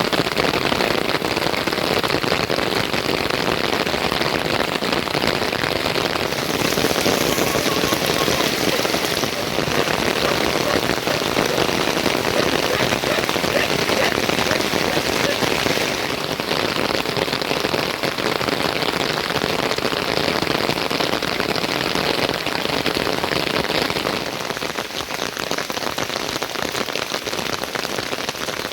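Heavy rain falling steadily, a dense even hiss of drops that eases slightly near the end.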